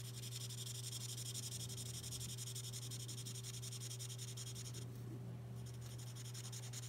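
L'emouchet twin-tip marker nib rubbing on paper as a flower is coloured: a soft, continuous scratching that stops briefly about five seconds in and then resumes, over a steady low hum.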